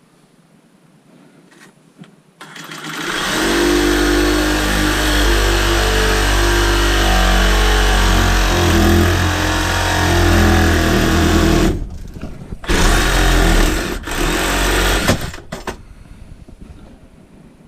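Power saw cutting through a furnace flue pipe: it starts about two and a half seconds in, runs steadily for about nine seconds with its pitch dipping slightly under load, then stops and starts twice briefly before stopping.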